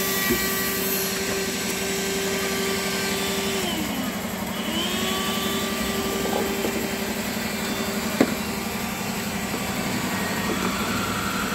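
Vacuum cleaner running steadily, sucking dust through its hose; the motor's pitch dips about four seconds in and comes back up a second later. A single sharp click comes near the end.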